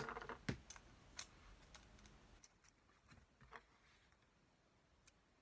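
Faint clicks and taps of small box cutter parts being handled and fitted together by hand, several in the first couple of seconds, then a few scattered ones.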